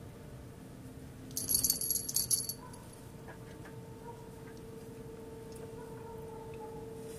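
A brief metallic jingling, about a second long, starting a little over a second in, over a faint steady hum.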